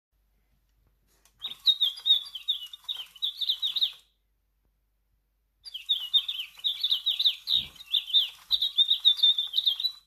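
Sound-activated toy Eastern Rosella playing recorded bird song through a small speaker: two bouts of rapid high chirps. The first runs for a couple of seconds and stops abruptly, and the second starts about a second and a half later.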